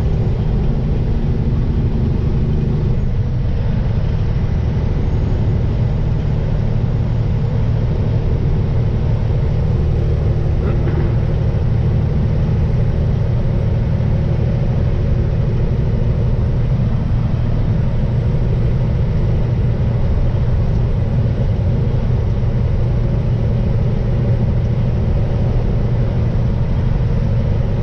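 Steady engine drone and tyre noise heard inside a vehicle's cab while driving on a snow-covered highway, with a constant low hum.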